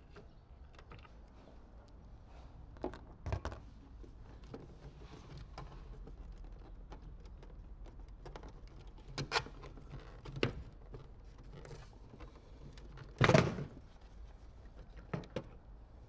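Scattered metal-and-plastic clicks and knocks as a 10mm socket on an extension undoes a Nissan Qashqai's inside door handle and the handle unit is worked free of the bare door frame. The loudest knock comes about three-quarters of the way through.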